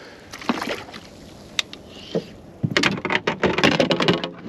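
Knocks and clatter of fishing gear being handled aboard a small boat: a few scattered sharp knocks, then a dense run of rattling and clattering for about a second and a half near the end.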